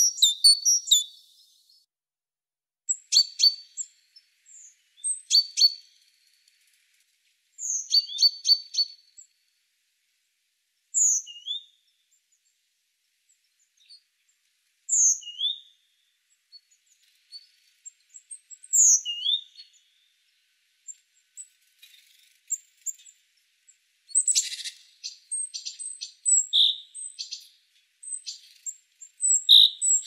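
Great tit calling and singing: short bursts of rapid, high, clicky notes every two to three seconds, then spaced falling whistled notes in pairs about every four seconds, and a denser run of chattering calls near the end.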